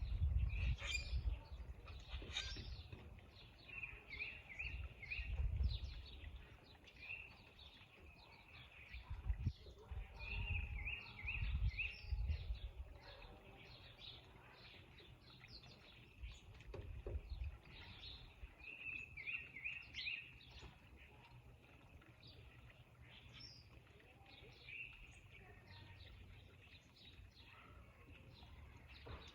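Several wild birds chirping, with one singing a short phrase of about four quick notes three times. Low rumbles come and go, mostly in the first half.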